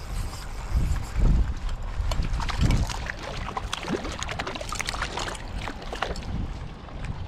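Wind rumbling on the microphone in uneven gusts, with a run of small clicks and taps in the middle.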